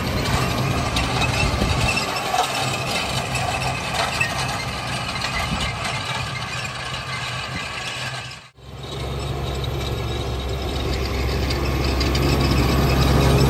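Landini 8-310 tractor's diesel engine running steadily while it pulls a LandStal cultivator through the soil, with the implement rattling and clattering. A brief break comes about two-thirds through, after which the engine is louder and fuller, growing louder still near the end as the tractor comes close.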